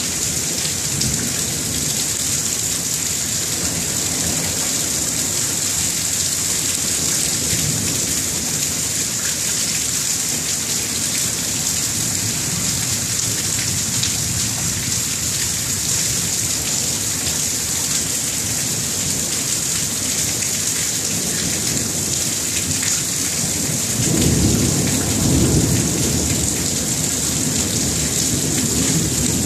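Thunderstorm: steady heavy rain hissing throughout, with low thunder rumbling faintly off and on. A louder roll of thunder swells near the end and lasts a few seconds.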